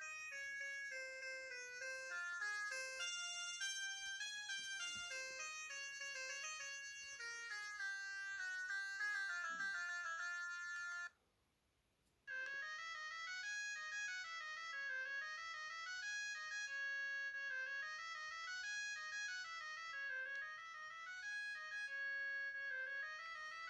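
Ringtones of an Avatar ET1 watch mobile phone playing back: a melody of quick electronic notes stops suddenly about eleven seconds in, and after about a second of silence a different melody begins.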